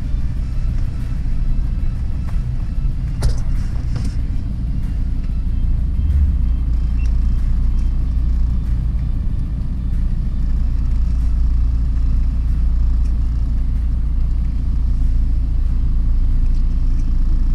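Low, steady rumble of a car's engine and tyres heard inside the cabin as it rolls slowly over grassy ground, with a brief sharp knock about three seconds in.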